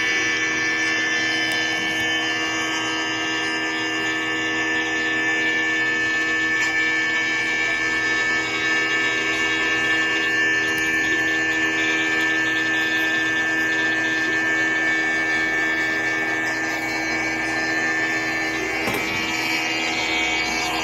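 A small electric motor runs steadily with a constant whine and hiss, holding the same pitch and level throughout.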